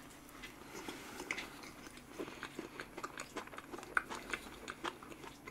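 Close-miked chewing of a mouthful of chocolate cherry cream cake, topped with chocolate shavings: soft, wet mouth sounds with small irregular clicks, several a second.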